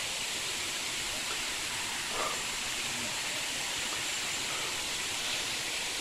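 Steady rushing of a nearby waterfall, even and unbroken, with faint voices twice in the middle.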